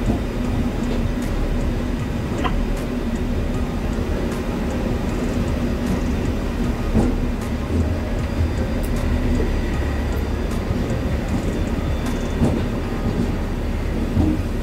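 Train running slowly, heard from inside the locomotive cab: a steady low rumble with a hum, and scattered knocks and rattles from the wheels and wagons on the track.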